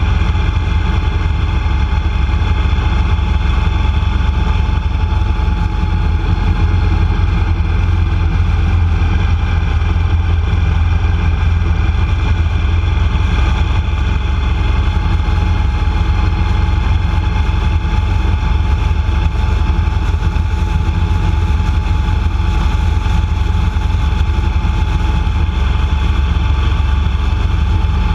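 A vehicle driving at steady cruising speed on an open highway: a constant low rumble of road and engine noise with a steady hum over it, unchanging throughout.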